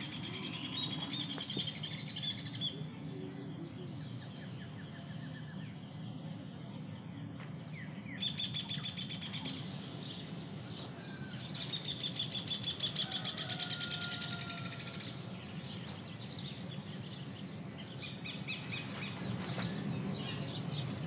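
Birds chirping and trilling: several rapid, high trills come and go, with a few short whistled notes, over a steady low background rumble.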